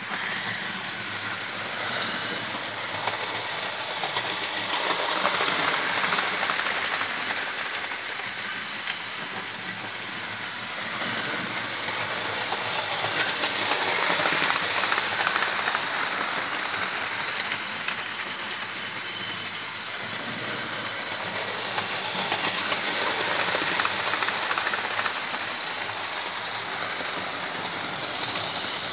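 Hornby OO-gauge Coronation Scot model trains running around the layout track, a continuous rattling whirr of motors and wheels on rail that swells and fades several times as the trains pass close by.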